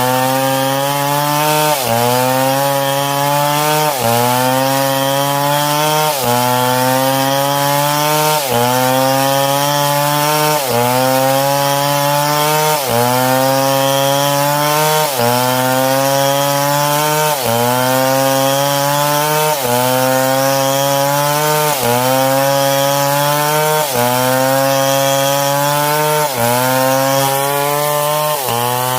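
Stihl MS661 two-stroke chainsaw running under load while cutting wood. Its engine note dips sharply and then climbs again, in a regular cycle about every two seconds.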